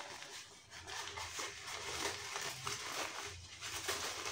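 Paper wrapping rustling and crinkling as hands pull it off a plant's stem.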